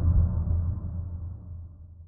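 A deep electronic bass boom that fades away steadily over about two seconds.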